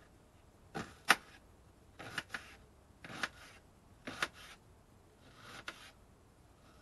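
Kitchen knife chopping an onion on a cutting board: short, sharp knocks of the blade striking the board, irregularly spaced, about one or two a second, some in quick pairs.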